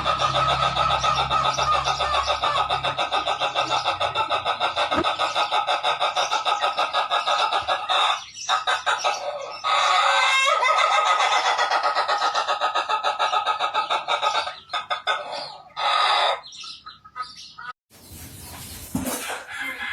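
Ayam ketawa (laughing chicken) rooster crowing in a long, rapid stuttering series of notes that runs on for more than ten seconds, then breaks into a few shorter runs and stops about two-thirds of the way through.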